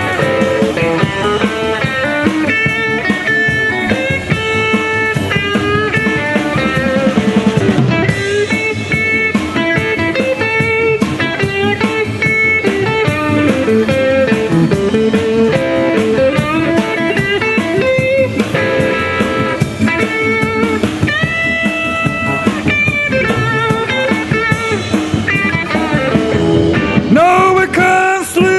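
Live blues band playing an instrumental break, the electric guitar carrying the lead with held notes that bend in pitch over the band's steady backing.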